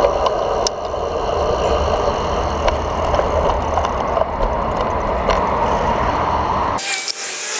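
Wind rumbling on the microphone of a bicycle-mounted camera, with road and city traffic noise while riding, and a few sharp clicks. Near the end the low rumble cuts off suddenly and a thinner, higher hiss takes over.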